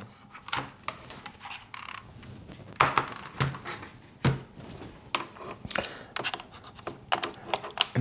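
Typing on a Keychron C2 mechanical keyboard: an irregular run of key clacks, a few strokes louder than the rest.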